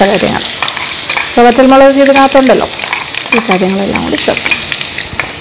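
Crushed shallot, garlic, dried red chilli and peppercorn paste sizzling in hot coconut oil with curry leaves in a wok, a steady hiss throughout. Twice, a held voice-like tone sounds over it.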